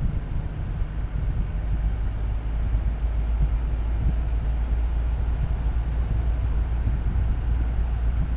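Steady low rumble of a vehicle driving on a paved road, with wind buffeting the microphone of a camera mounted outside the vehicle.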